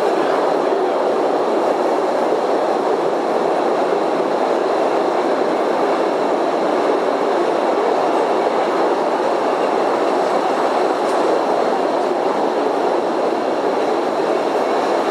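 Small tourist train running underground through a cave tunnel: a steady, even rumble of its wheels on the rails.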